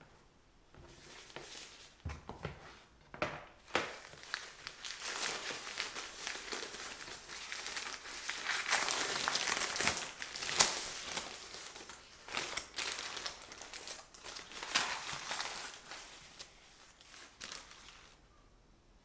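Plastic wrap and baking paper crinkling and crackling as they are peeled off a rolled sponge cake, with many sharp crackles; loudest about halfway through, then fading.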